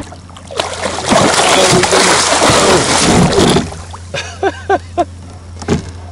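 A big blue catfish thrashing and splashing at the surface beside a kayak, fighting the line as it is brought in by hand. There is a loud burst of splashing for about three seconds, and then it dies down.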